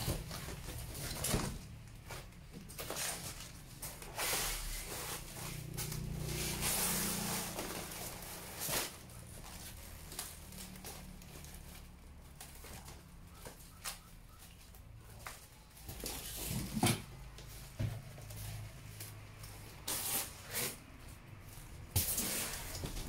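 Scattered knocks, clicks and rustles of things being handled in a small room, irregular and widely spaced, over a faint low hum.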